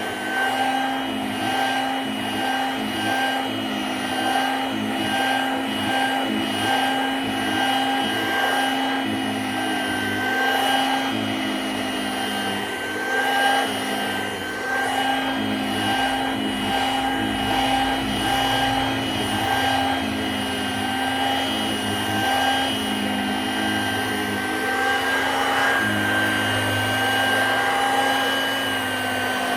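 Dirt Devil two-speed handheld vacuum running on high speed: a steady motor whine with the airflow rising and falling as the nozzle is worked over a chair.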